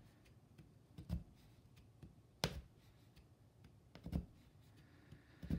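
Oxford punch needle punching wool yarn through monk's cloth stretched on a frame: four faint, short thuds, one with each stroke, about a second and a half apart.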